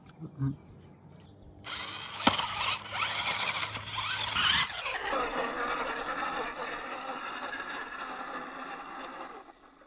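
Toy RC car's small electric motor and plastic gearbox whirring and grinding as it drives. It starts about two seconds in, harsh at first, then turns duller and steady about five seconds in, stopping just before the end.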